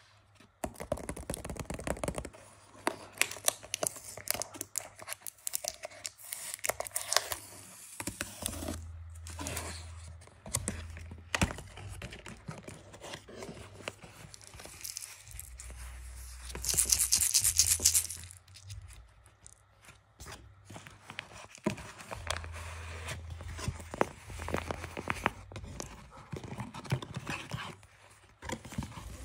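Paper and cardboard packaging being torn open and crinkled by hand, with many small crackles and rustles. A longer, louder tearing sound comes a little past halfway.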